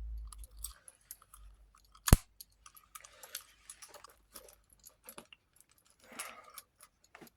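Small items being handled and set down: rustling with scattered light clicks and one sharp click about two seconds in.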